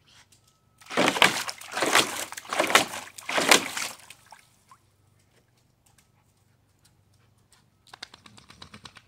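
A dog splashing and sloshing water in a small pool, four surges of splashing in a row over about three seconds. A short run of faint quick ticks follows near the end.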